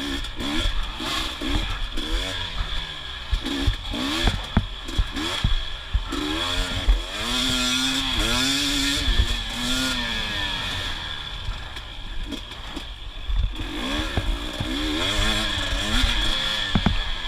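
KTM 250 XC TPI single-cylinder two-stroke dirt bike engine revving up and down again and again as the throttle is worked, with frequent knocks and clatter from the bike over rough ground.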